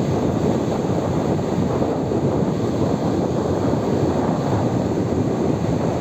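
Steady roar of strong wind and breaking surf on a beach in rough weather.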